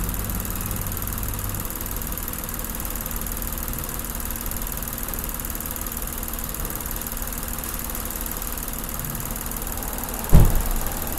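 Car engine idling steadily with the hood open, heard close over the engine bay. About ten seconds in there is one short, heavy thump.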